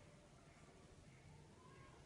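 Near silence: faint room tone, a steady low hum and hiss.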